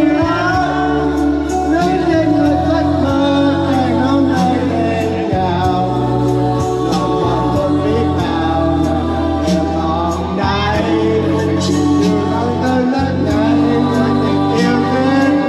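A song playing, with singing over a backing track that has sustained bass notes and a steady beat.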